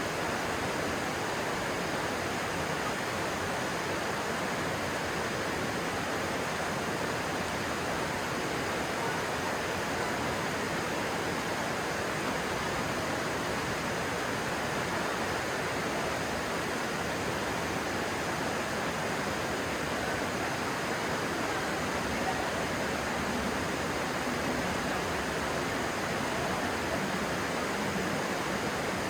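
Stream water rushing steadily, an even, unbroken hiss.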